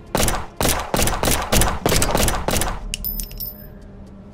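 Two semi-automatic pistols firing a rapid volley of about a dozen shots in under three seconds, followed by a few high ringing clicks.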